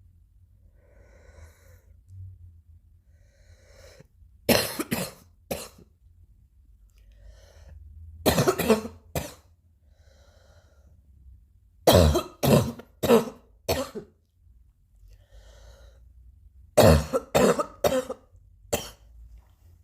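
Coughing in four bouts of three or four sharp coughs each, separated by a few seconds of quieter sounds.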